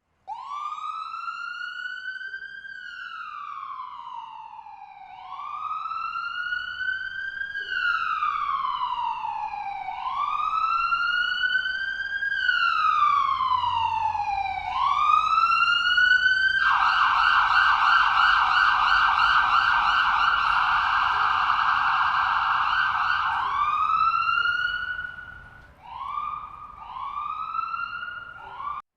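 Electronic ambulance siren sounding a wail, each cycle rising quickly and falling slowly, repeating about every two and a half seconds and growing louder over the first several seconds. About two-thirds of the way through it switches to a fast yelp for several seconds, then returns to short rising whoops near the end.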